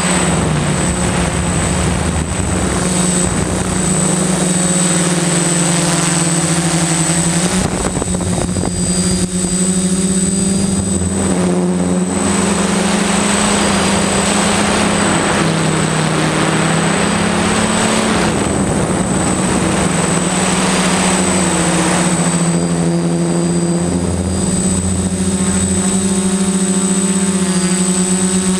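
Electric motors and propellers of a small FPV radio-controlled aircraft, heard through its onboard camera. A steady buzzing hum shifts up and down in pitch as the throttle changes, under a thin constant high whine, with stretches of wind rush in the middle.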